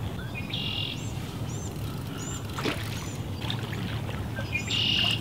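Songbirds calling over a steady low rumble: a buzzy trilled song about half a second in and again near the end, with short high chirps between.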